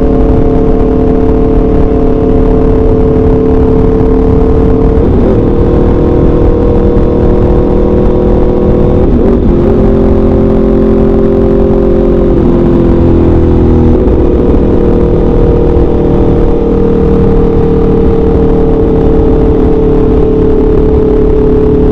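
The V4 engine of an Aprilia RSV4 RF sports bike running through an SC-Project CRT exhaust at a steady cruise. There are brief breaks in the engine note about five, nine and twelve seconds in, where the pitch steps down as it changes up a gear with the quickshifter. After that the note sinks slowly.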